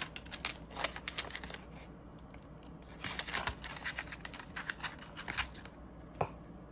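Clear plastic binder pocket and paper bills crinkling and rustling as cash is slid into the pouch, in two spells of crisp handling noise, with a single sharp click near the end.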